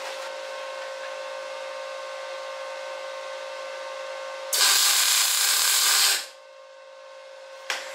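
MIG welding torch laying a short tack weld: the arc crackles loudly for about a second and a half, about halfway in, then cuts off. A brief second burst comes near the end. A steady machine hum runs before the weld.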